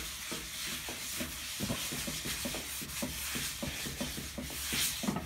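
Folded paper towel rubbing oil around the inside of a hot cast iron skillet, a fast, even run of short scrubbing strokes. The pan is being seasoned: a thin coat of flaxseed oil is being spread over its surface.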